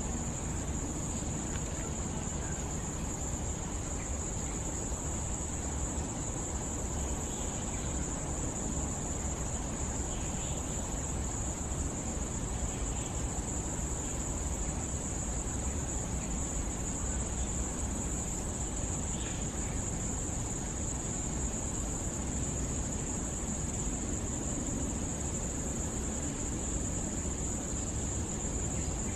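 Steady insect chorus, a continuous high-pitched drone that never breaks, over low background rumble, with a few faint short chirps here and there.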